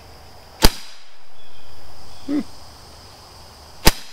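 Daisy Powerline CO2-powered BB pistol fired twice at a clay target, about three seconds apart: two sharp pops.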